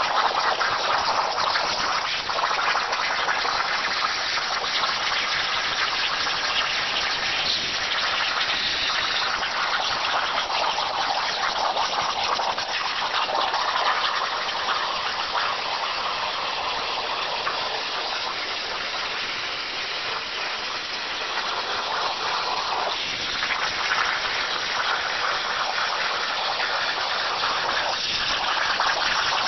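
CNC plasma cutter torch cutting 1/8-inch steel plate over a water table: a steady, loud hiss of the plasma arc, rising and falling slightly as the torch moves along the cut.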